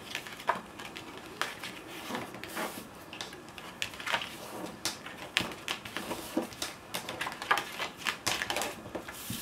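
Folded white cardstock album pages being handled, flipped and pressed flat by hand: an irregular run of short paper taps, rustles and scrapes.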